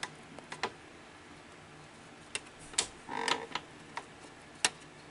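Scattered light clicks and ticks, about half a dozen, as a cotton swab is worked around the hub of a Sony SL-100 Betamax reel table.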